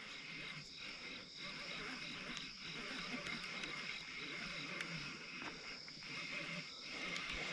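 Crickets and other night insects chirping steadily in a continuous high-pitched chorus.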